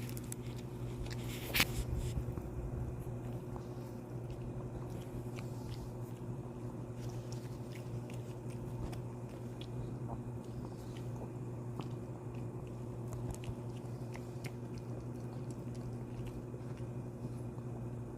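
A dog chewing pork belly: irregular small wet clicks and smacks of jaws and teeth, with one sharper click about one and a half seconds in.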